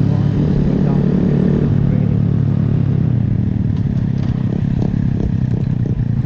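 Small motorcycle engine running steadily, its pitch easing down a little about halfway through. From about four seconds in, a light clatter repeats roughly three times a second.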